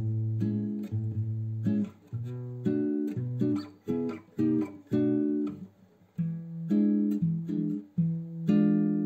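Background music: a plucked guitar playing a melody of separate notes in short phrases.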